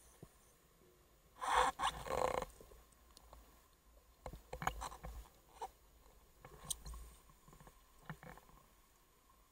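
Underwater sound through a camera housing: a scuba regulator's exhaled bubbles gurgle past in a burst of about a second, starting about one and a half seconds in, followed by scattered clicks and smaller bubbling.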